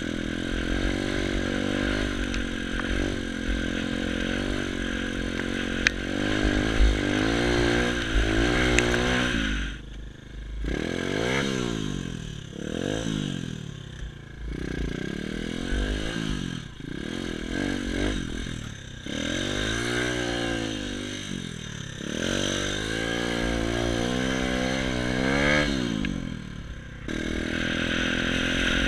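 Xmotos XB33 140cc pit bike's single-cylinder four-stroke engine being ridden hard off-road, its pitch climbing and dropping every second or two through the middle stretch as the throttle is opened and shut.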